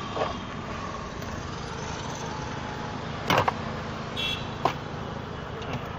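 Plastic interior trim cover being worked loose from a car's centre console, with a sharp click about three seconds in and a lighter click a little later, over a steady background hum.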